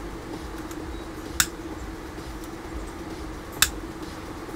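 Two sharp clicks, about two seconds apart, from the piezo igniter of a small butane torch being clicked without lighting, over a steady low hum.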